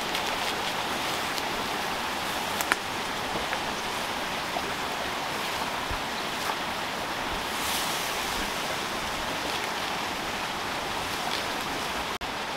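Steady rush of flowing water from a spring and its stream, with a few light knife taps on a wooden cutting board as an onion is chopped.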